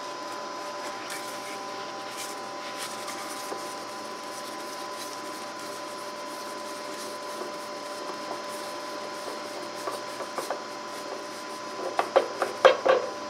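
Spin-on hydraulic oil filter of a Scag Tiger Cat, its canister crumpled, being turned off by a gloved hand: faint rubbing and scraping of metal. A quick run of louder knocks and clatters comes near the end, over a steady hum.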